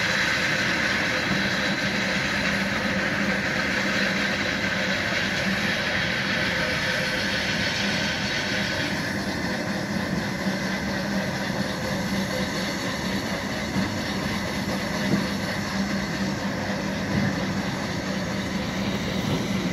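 An engine running steadily, a constant low hum under a dense hiss that thins out about nine seconds in.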